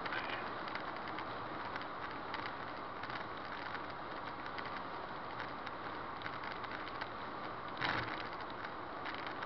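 Cabin noise in a subcompact car at freeway speed: a steady hiss of tyres and engine, with frequent light rattles and one louder knock about eight seconds in.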